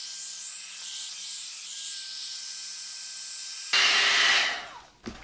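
Amika hot-air blow dryer brush running on its highest setting: a steady rushing hiss of air, thin and high for most of the stretch, then louder and fuller for a moment near the end before fading away.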